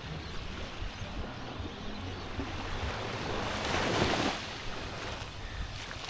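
Small waves washing in at the water's edge, one wash swelling and fading about four seconds in.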